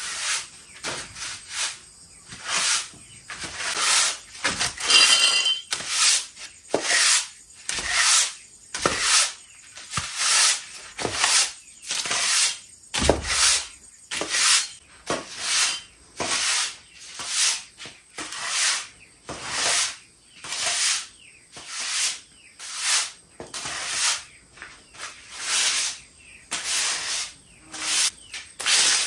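Rhythmic swishing strokes of a hand tool or broom working over grass or ground, about one a second and evenly paced, each a short hissy sweep.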